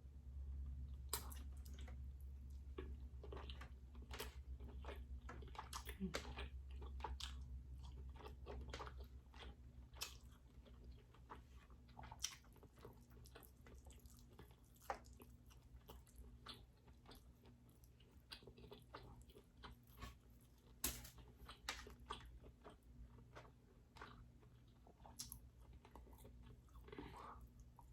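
Faint close-miked chewing and mouth sounds of someone eating king crab meat dipped in garlic butter sauce, with scattered sharp clicks and crunches.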